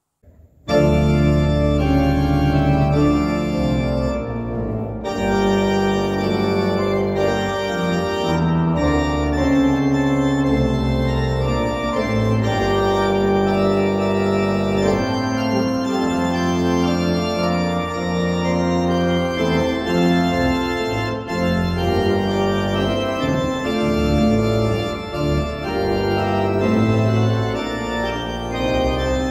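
Church pipe organ playing, with sustained chords that change every second or so, starting about a second in.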